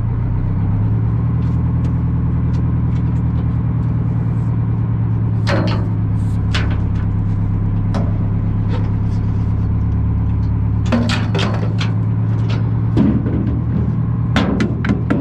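A boat's engine running steadily at low speed, a deep even hum, with a few short knocks and clunks as the mooring gear is handled at the bow.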